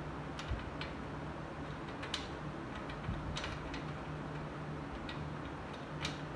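Small, irregular metal clicks, about eight of them, as a Harley-Davidson Sportster fork-tube cap is turned slowly by hand on its fine thread. A steady low hum runs underneath.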